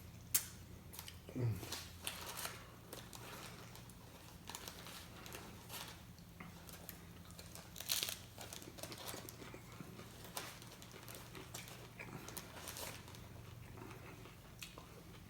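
Someone eating tacos: paper wrapper crinkling along with bites and chewing, a scatter of soft crackles and clicks with a few louder ones near the start and about halfway through.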